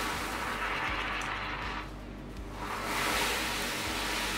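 Caustic soda pearls being stirred into water in a glass bowl: a hissing swish that dies down about two seconds in and picks up again a second later.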